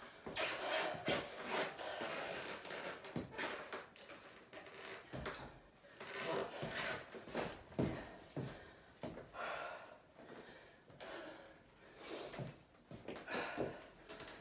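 A person breathing hard and moving about on a wooden floor between sets of a dumbbell workout, with irregular noisy breaths.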